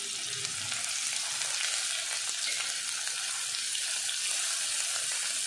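Sliced onions and cumin seeds sizzling in hot mustard oil in a steel kadhai, a steady frying hiss, while a silicone spatula stirs them.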